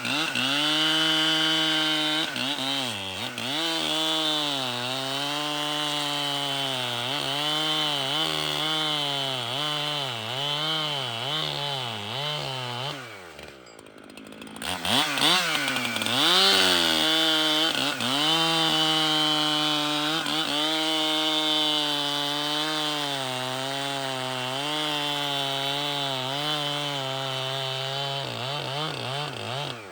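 Echo two-stroke chainsaw cutting wood at full throttle, its pitch dipping under load and recovering again and again as it works through the cut. About halfway in the engine falls briefly toward idle and quieter, then revs back up and runs on at a steadier high pitch.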